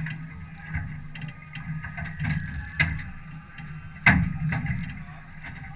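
Steady low hum of an aluminium fishing boat at rest on the water, with sharp knocks on its hull or deck, the loudest about four seconds in.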